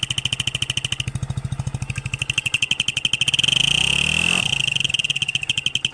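Hero Splendor single-cylinder motorcycle engine running with a turbo-whistle insert in its exhaust, giving a steady high whistle over the engine's even exhaust pulse. The whistle fades briefly after about a second, then the throttle is opened for a short rev a little past halfway, raising the engine note and the whistle before it settles back to idle.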